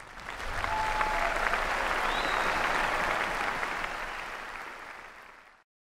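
Crowd applauding. It builds within half a second, holds, then fades and cuts off sharply shortly before the end.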